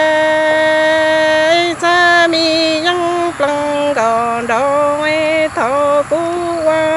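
Unaccompanied solo singing in the Hmong sung-poetry (kwv txhiaj) style. A long held note gives way about a second and a half in to a run of sliding, wavering phrases, broken by short breaths.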